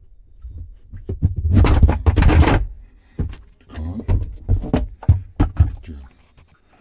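Knocks and clatter of washing machine parts being handled during disassembly, with a louder rushing, scraping burst about two seconds in.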